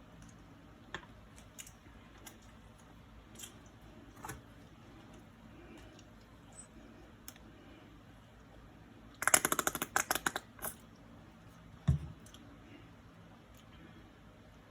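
Scattered small clicks and taps of hands and utensils working over a sandwich. About nine seconds in comes a dense run of rapid clicking lasting over a second, and a single low thump follows near twelve seconds.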